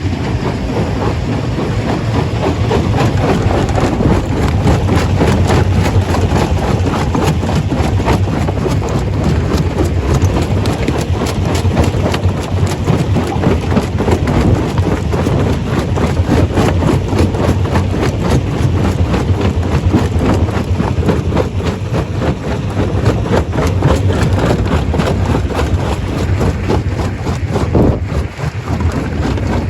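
Stone crusher running: a steady low engine drone with a constant rattling clatter over it, dipping briefly near the end.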